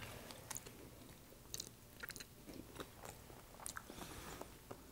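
A person eating jajangmyeon noodles with chopsticks: faint chewing and slurping mouth sounds, with short clicks scattered throughout.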